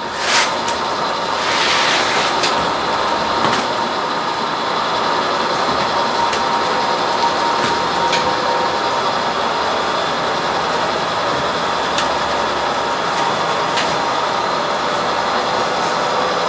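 Automatic oil pouch packing machine running, with a steady mechanical noise. Sharp clicks come every couple of seconds as the pneumatic sealing jaws close on the pouches. There are short hisses of air in the first two seconds.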